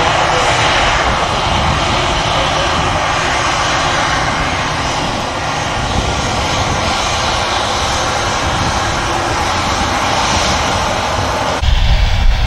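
Airbus A320's twin jet engines running steadily as the airliner rolls along the runway, a loud even rush with a faint whine. Near the end the sound cuts abruptly to a louder, deeper rumble.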